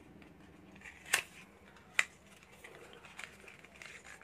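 Quiet handling of a lipstick and its cardboard box: two sharp clicks about a second apart, then light ticks and rustling as the lipstick is taken out and opened.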